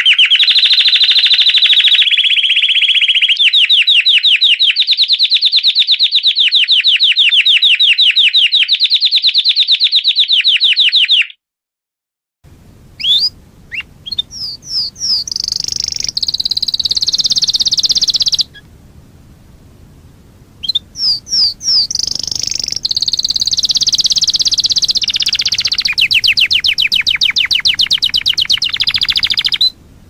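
Domestic canary singing a song of fast trilled rolls. Partway through, the song breaks off for about a second and then resumes over a faint hiss, with quick rising notes and further long rolls.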